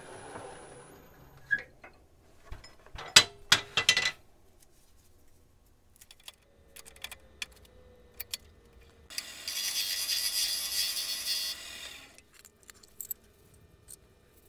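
Sped-up wood-lathe workshop noises: a cluster of sharp clicks and knocks about three seconds in, scattered small ticks, then a few seconds of steady hiss near the end.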